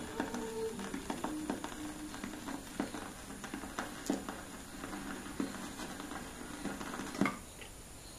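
Vinyl 7-inch single playing out at the end of a song: the last faint notes die away under surface noise, with a sharp click about every 1.3 seconds, once per turn of a 45 rpm record. A louder click comes near the end, then only faint hiss.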